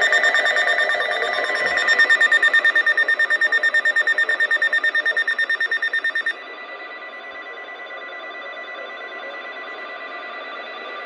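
Weather radio alert tone: a loud electronic alarm pulsing rapidly, several times a second, with many overtones. About six seconds in it cuts off abruptly, leaving a fainter steady tone that carries on.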